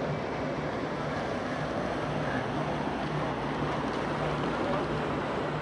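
Motorboat engine running steadily with a low hum, under the rush of water and wind.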